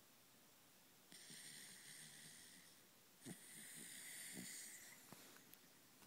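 A Corgi snoring in deep sleep: two long, faint hissing snore breaths, the second broken by a few short low snorts.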